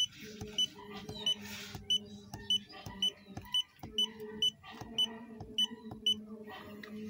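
Short, high electronic beeps repeating about twice a second, each with a light click, over a steady low hum.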